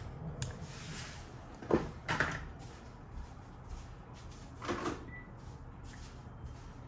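Plastic Panasonic cordless phone handset being set into its charging cradle: a sharp clack a little under two seconds in, a softer knock just after, and more handling clicks near five seconds, followed by a short faint beep.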